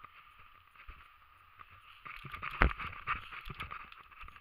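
Footsteps and gear rustling of a person walking on a dirt and grass path, irregular knocks over a steady hiss, with one heavier knock about two and a half seconds in.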